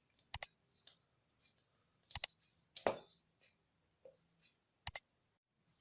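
Sharp clicks from small hard parts being handled: a double click near the start, another pair about two seconds in followed by a single louder click, and a last double click near the end.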